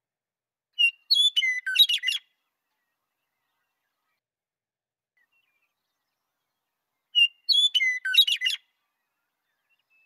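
Western meadowlark singing: the same song phrase twice, about six seconds apart, each about a second and a half of clear whistled notes running into a quick run of short notes, with additional notes mixed in.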